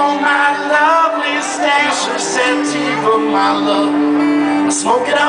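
Live band music: bowed cello, keyboard and guitar playing together, with held notes beneath a wavering melody line.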